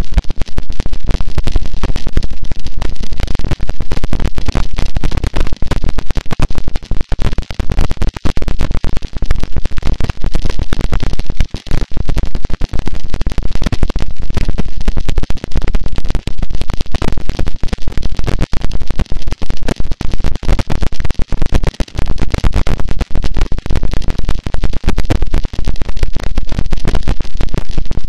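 Harsh noise wall: a loud, dense, unchanging wall of distorted static across the whole range, heaviest in the lows, with a constant fine crackle.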